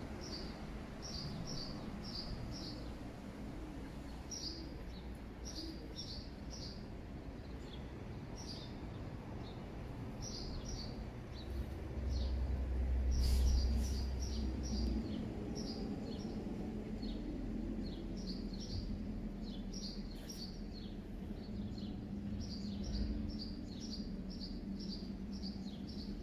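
Small birds chirping, short high notes repeated in quick clusters throughout, over a steady low background rumble; a louder low rumble swells and fades between about twelve and fifteen seconds in.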